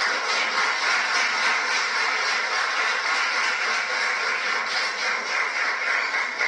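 Noisy crowd commotion of many voices at once, heard through a television's speaker.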